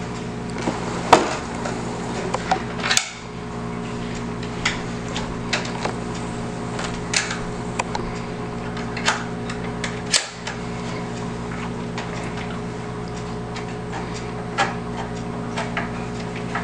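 Irregular light clicks and taps of a screwdriver and wrench working the small screws and nuts that hold the cutting arms on a snow cutter blade, over a steady low hum.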